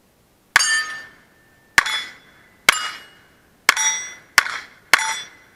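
Six revolver shots in a quick string, the last three closer together. Each is followed by the bright ring of a steel plate target being hit.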